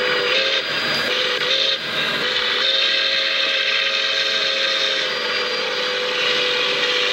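Milwaukee Road 261's steam whistle blowing: two short blasts, then a long one held for several seconds, over the steady noise of the moving train.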